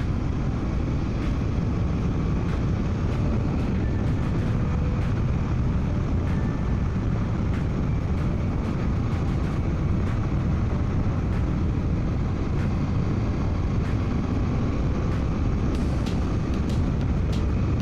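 Steady motorcycle riding noise heard through a microphone inside the helmet: wind rush over the helmet and the 2024 Suzuki V-Strom 800DE's parallel-twin engine running at an even pace, with no shifts or revs standing out.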